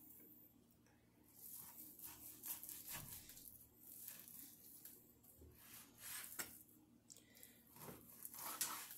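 Faint, irregular cutting and scraping of a knife through raw beef as the fat is trimmed off.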